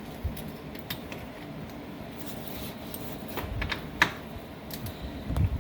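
Scattered small clicks and knocks of hand tools and parts being handled while working on a truck's front end, with one sharp click about four seconds in and a few low bumps.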